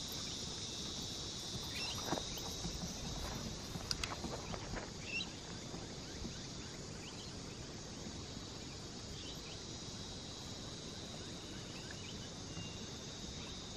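Steady high-pitched insect chorus across open pasture, with a few soft thumps in the first four seconds from a horse's hooves and running feet on grass as the horse and handler slow to a stop.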